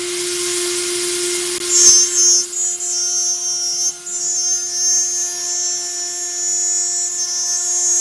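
CNC router spindle running with a steady whine while its end mill cuts aluminium sheet under a mist-coolant spray. A hiss fills the first couple of seconds, then a shrill, wavering squeal from the cut sets in and dips briefly around four seconds in.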